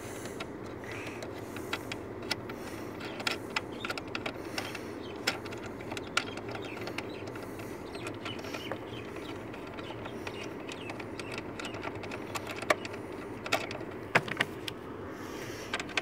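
Small irregular metallic clicks and scrapes as a loosened front-seat mounting bolt is spun out of the seat rail by hand, over a steady low background hum.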